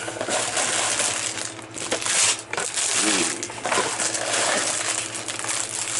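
Sealed plastic bags of LEGO pieces crinkling and rustling as they are handled, with the small bricks inside clinking.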